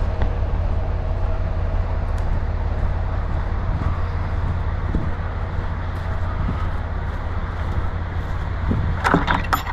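Steady low rumble of an idling diesel truck engine, with a few sharp metallic clanks and rattles near the end.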